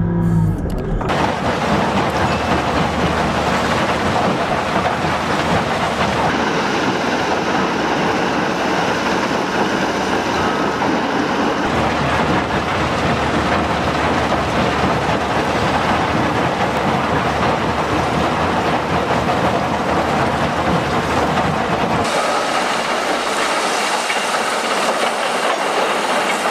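Heavy quarry machinery at work: a dense, steady rumble and rattle of diesel earthmoving equipment and rock being handled. About 22 seconds in the low rumble drops away and a higher-pitched rattle of rock takes over.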